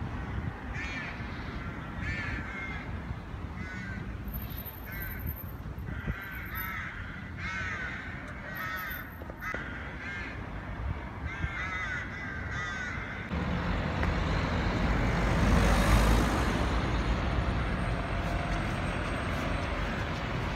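Crows cawing again and again, a short harsh call every half second to a second, over a low background rumble. About two-thirds through, a louder rushing noise takes over and swells, drowning the calls.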